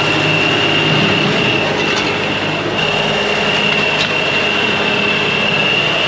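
LS compact tractor's diesel engine running steadily under load while its front loader pushes snow, with a steady high whine over the engine.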